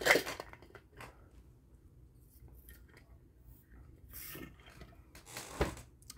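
A cup being handled and sipped through a straw: a sharp knock of the cup at the start, a short slurp about four seconds in, and another click near the end.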